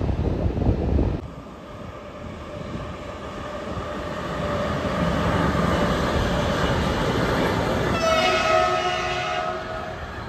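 Freight train of container and tank wagons rolling past, a steady rumble that builds over several seconds. About eight seconds in a train horn sounds once for roughly two seconds. A second of low wind noise on the microphone comes first.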